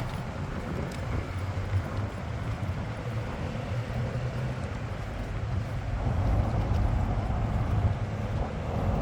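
City street ambience dominated by the low rumble of road traffic, swelling as a vehicle passes about two-thirds of the way through.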